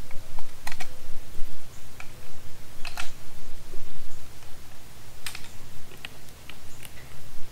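Scattered sharp clicks and clacks, about seven of them at uneven intervals, as .45 ACP cartridges are taken from a plastic reloading case and loaded into a Glock 30 magazine.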